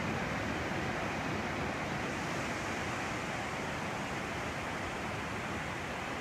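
Ocean surf breaking on a sandy beach: a steady, unbroken wash of noise with no single wave crash standing out.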